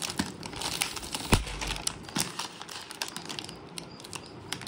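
Plastic packaging crinkling and crackling as hands pull the wrapping off and handle a shiny plastic pouch, in irregular sharp crackles with one louder crackle about a second in, growing sparser toward the end.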